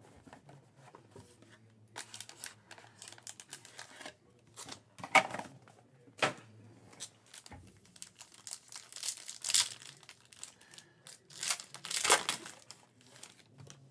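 A trading-card hobby box being handled and a sealed foil card pack crinkling and tearing as it is ripped open by hand. Irregular crackles throughout, with sharper, louder crinkles about 5, 6, 9.5 and 12 seconds in.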